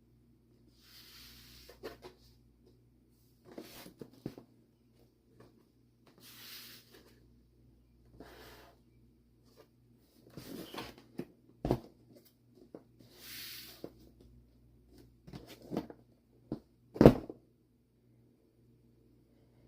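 Laptop packaging being handled during unboxing: intermittent rustling and scraping with a few sharp knocks, the loudest a single low thump near the end.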